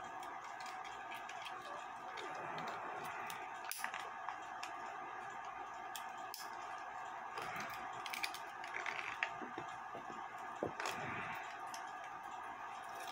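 Scattered small metallic clicks and taps from a clock mainspring and its barrel being handled while the spring is fitted back in, a quick cluster of them about two-thirds of the way through, over a steady background hiss.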